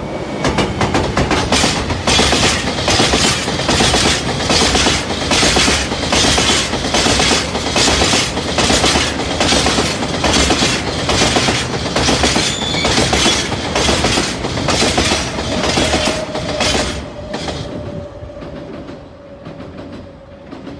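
Freight train of tank wagons rolling past, the wheels clacking over rail joints in a steady rhythm of about two clacks a second. The clacking fades as the last wagon passes near the end, leaving a thin steady tone.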